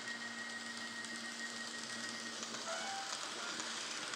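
N scale model passenger train running past on the layout: a steady hiss of small wheels on the rails with a faint hum from its electric motor and a few light ticks.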